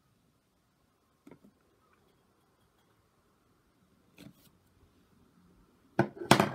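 Stamping and craft tools handled on a tabletop: a faint tap, a click a few seconds later, then a quick cluster of loud knocks near the end.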